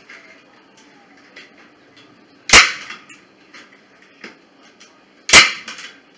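Staple gun firing twice, about three seconds apart, each a single sharp snap as it drives a staple through chicken wire into a wooden frame.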